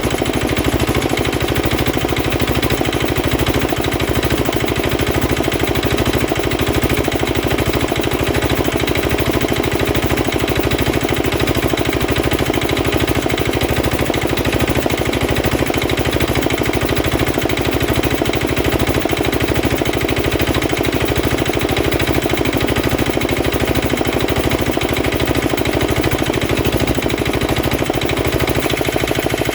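Petter AA1 single-cylinder diesel engine running steadily with a fast, even firing beat, driving a belt-driven air compressor.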